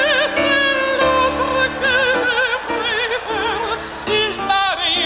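Operatic singing: a high voice sings sustained notes with a strong, wide vibrato over a held instrumental accompaniment.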